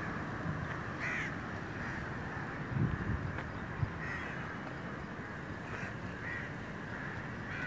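Crows cawing now and then, about five short calls, over steady outdoor street noise, with a low thump near the middle.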